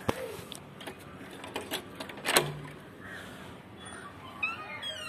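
A key turning in a wooden door's lock, with a few sharp metallic clicks, the loudest about halfway through. Near the end the door's hinges creak in falling squeals as it swings open.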